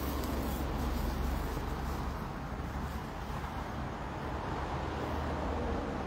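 Steady outdoor background rumble, low and even, with no distinct events.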